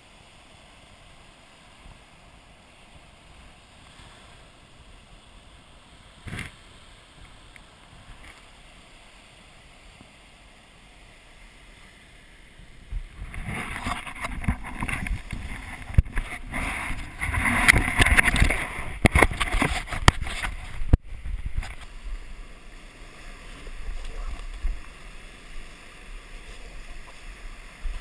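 A faint, steady wash of surf. About a third of the way in it gives way to several seconds of loud rubbing, knocking and clicking as the body-worn action camera brushes against a diver's weight belt and gear. It then settles to a lower, uneven rumble.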